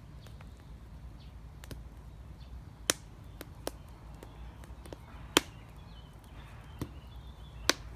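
A knife cutting raw potatoes into slices: a series of sharp, irregular chops, about five of them louder than the rest.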